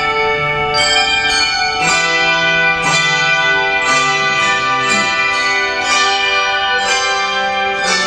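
Massed handbell choir ringing a piece, struck chords about once a second with the bells sustaining and overlapping between strikes.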